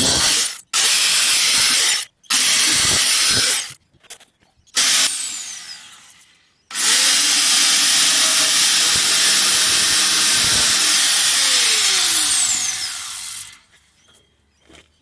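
Handheld power tool cutting the sheet steel of a donor BMW E30 mudguard, run in several short bursts and then one long cut that winds down with a falling whine near the end.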